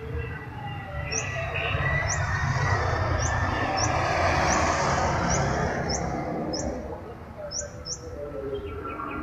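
A motorcycle passing along the road, its engine and tyre noise swelling over a few seconds and then fading. A bird chirps repeatedly in short, high notes, about two a second.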